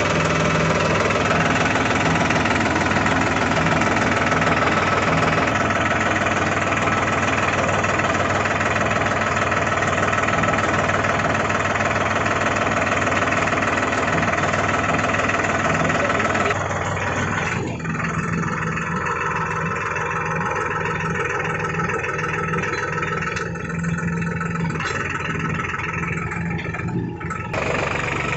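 Diesel engine of a Euro 42 Plus tractor running steadily at low speed while pulling a potato planter through the field. About two-thirds of the way through the sound turns a little quieter and duller.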